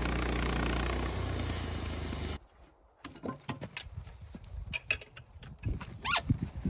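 A sawmill's engine running steadily, cut off abruptly about two seconds in. Then a string of short, pitch-bending animal calls, the loudest near the end.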